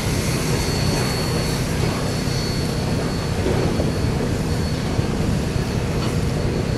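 Freight train of hopper cars rolling past behind a steam locomotive: a steady rumble of wheels on rail, with a thin high whine running through it.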